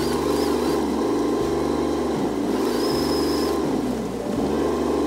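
Radio-controlled Tamiya Globe Liner truck's electric motor and gearbox whirring as it crawls along, the pitch dipping and rising again about once a second as the throttle is eased and reapplied.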